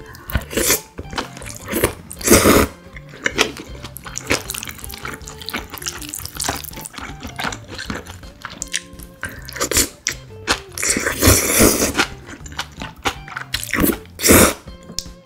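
Tap water running and splashing in a sink in uneven bursts, loudest three times, with background music underneath.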